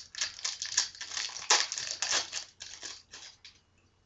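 Foil trading-card booster-pack wrapper crinkling and crumpling in the hands in quick, irregular rustles, dying away about three and a half seconds in.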